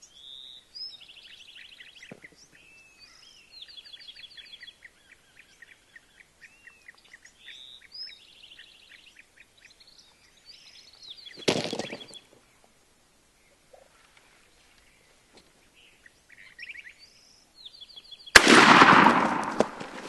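Small birds chirping and trilling, then a short loud burst about halfway through. Near the end comes a single loud gunshot that trails off slowly: the shot at a Gould's turkey gobbler.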